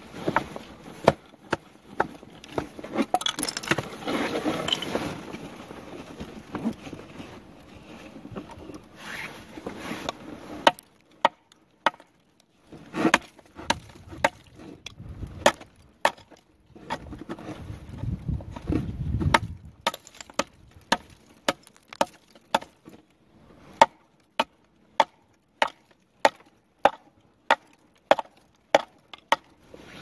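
Repeated chopping blows from a swung hand tool, short sharp strikes. They come irregularly at first, then settle into a steady rhythm of about one to two a second.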